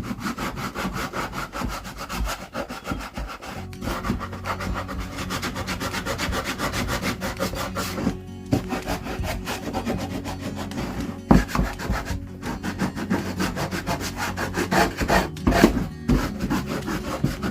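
Rough sandpaper rubbing on the painted edges of a wooden star in quick back-and-forth strokes, with a couple of brief pauses. It is scuffing the fresh paint off the edges to give a worn, vintage look.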